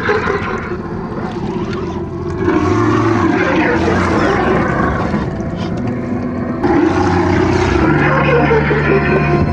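Axial SCX10 scale RC crawler's electric motor and drivetrain running as the truck churns through deep muddy water, with splashing and sloshing. The sound changes abruptly about two-thirds in, and steady low music tones come in near the end.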